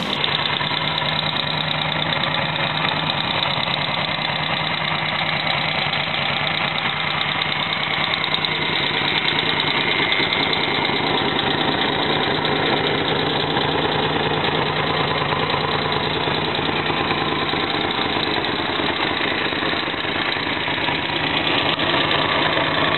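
Moto Morini Excalibur's V-twin engine idling steadily through its exhaust.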